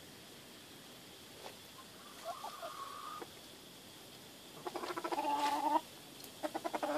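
Chickens calling: a faint call about two seconds in, then a louder drawn-out call that opens with a quick stutter about five seconds in, and another stuttering call starting near the end.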